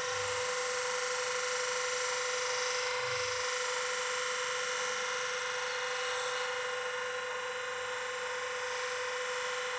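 F. Dick bench grinder running steadily with a constant whine while an axe blade is held against its felt honing wheel charged with polishing paste.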